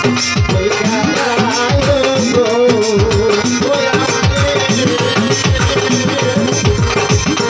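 A man singing a Bengali folk song into a microphone over hand drums, whose bass strokes slide down in pitch several times a second, with a steady rhythmic accompaniment.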